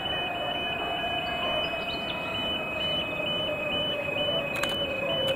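Railway level crossing warning alarm sounding, two high tones alternating a few times a second, while a train runs past with a low tone slowly falling in pitch and a few clicks of wheels over rail joints near the end.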